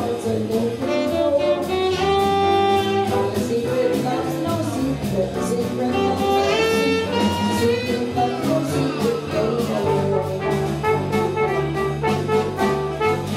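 Small jazz combo playing live: saxophones and trumpet play held and gliding melody lines over bass and drums, with a steady cymbal beat.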